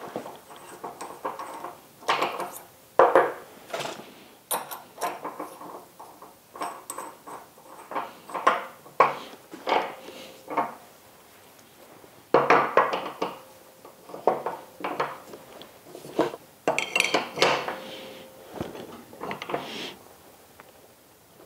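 Steel-on-steel clinks and clanks from a wrench working the collet nut of a tapered CNC tool holder during an end mill change: irregular knocks and scrapes, a few ringing briefly.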